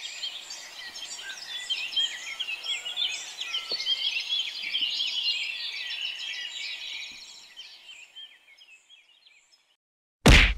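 Small birds chirping and twittering together as a background chorus that fades out about three-quarters through. Near the end comes a single loud whack of a wooden stick striking a person.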